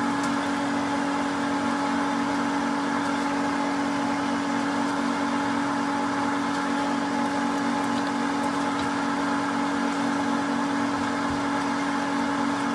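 Steady machine hum at a fixed pitch, with a faint, fast, regular ticking in it.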